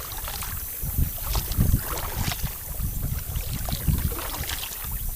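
Kayak being paddled: water splashing and sloshing around the paddle and hull in irregular strokes, with wind rumbling on the microphone.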